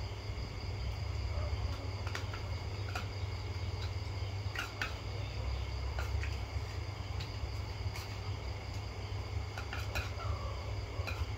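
Steady high chirring of night insects over a low steady hum, with scattered light clinks of metal spoons against plates as people eat.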